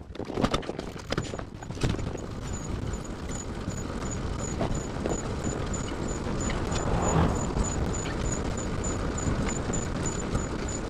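Bicycle pet trailer rolling along a street: a steady rumble and rattle from its wheels and frame on the road surface, with scattered knocks in the first couple of seconds. A faint high tick repeats about two to three times a second throughout.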